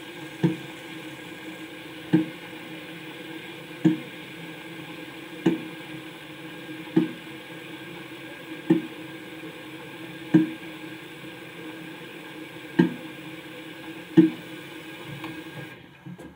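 Soft knocks repeating about every one and a half seconds over a steady hiss; the hiss stops near the end.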